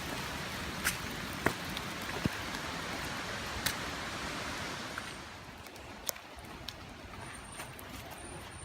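Steady hiss of rain falling, with scattered sharp taps of drops striking nearby; the hiss grows quieter and duller about five seconds in.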